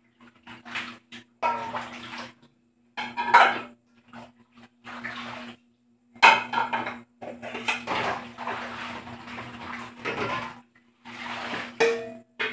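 Plates and bowls clinking and clattering as dishes are washed by hand in a steel basin and stacked, with water sloshing, in irregular bursts with short pauses.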